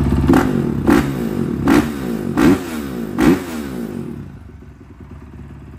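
Honda CRF 450R's single-cylinder four-stroke engine revved in five quick throttle blips, each rising and falling sharply, then dropping back to a quieter idle about four seconds in. The revs climb and fall very fast.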